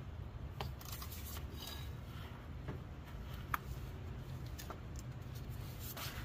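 Serpentine belt being worked off the engine's pulleys with a tensioner tool: scattered light clicks and rubbing, with one sharper click about three and a half seconds in, over a steady low hum.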